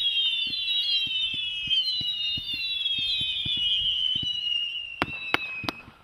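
Master of the Universe consumer firework going off: several shrill whistles overlap, each sliding slowly down in pitch, over small pops. Near the end the whistles die out and a few sharp cracks go off.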